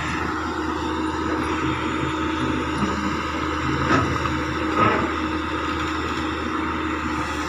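Hitachi excavator's engine running steadily, with two short sharp knocks about four and five seconds in.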